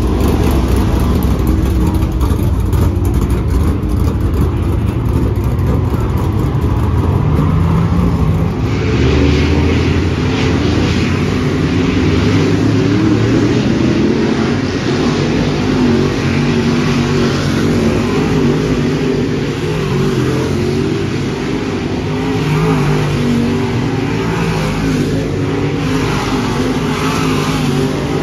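Dirt late model race cars running laps on a dirt oval, their engines revving up and down as they go around. The sound turns brighter and fuller about nine seconds in.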